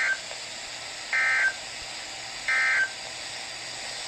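NOAA Weather Radio SAME end-of-message (EOM) signal: three short bursts of digital data tones, about 1.3 seconds apart, with the first already under way at the start. The bursts mark the end of the weekly test broadcast, over steady radio hiss.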